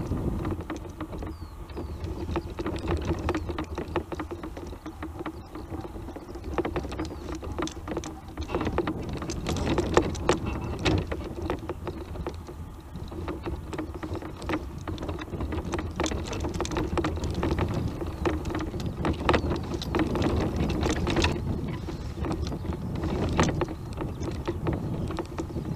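Tramper off-road mobility scooter driving over rough moorland ground: its electric motor runs with a steady whine while the scooter rattles and knocks over the bumps.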